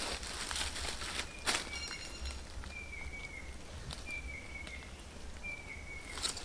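Bare feet crunching on dry leaf litter, loudest about a second and a half in and near the end. Between the steps a bird repeats a short, slightly falling whistled call four times, about every second and a half.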